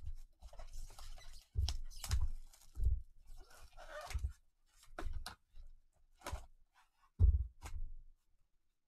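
A cardboard trading-card box (2019 Bowman's Best) being handled and opened by gloved hands. Irregular knocks and thuds of the box on the table, mixed with rustling of cardboard and crinkly wrapping; the loudest knock comes a little after seven seconds.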